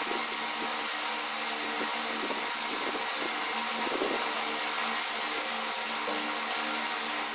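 A steady machine hum with an even hiss, broken by a few faint short knocks or rustles, the clearest about four seconds in.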